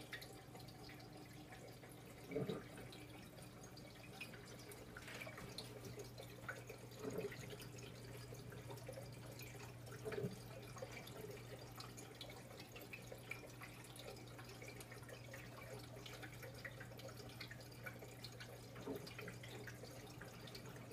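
Faint aquarium bubbling and dripping from air-driven sponge filters and an air diffuser bar breaking the water surface, over a steady low hum. A few brief louder sounds stand out, about 2, 7 and 10 seconds in.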